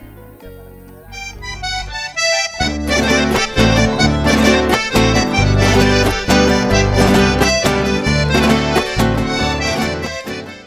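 Instrumental theme music: a quiet passage, then a rising run of notes about a second in, then loud full music with a steady beat from about three seconds in, fading out at the very end.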